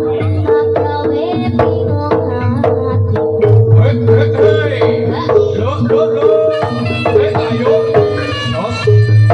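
Jaranan music led by a Javanese kendang, a large double-headed barrel drum, played by hand in quick, rhythmic strokes. The drumming sits over steady pitched melody notes and a deep bass.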